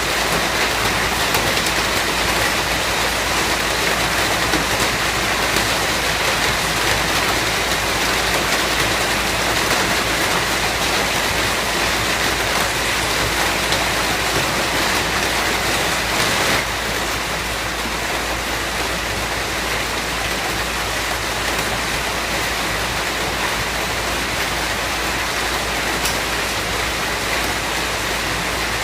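Steady, dense rainfall, an even hiss of many drops, stepping down slightly in loudness a little past halfway through.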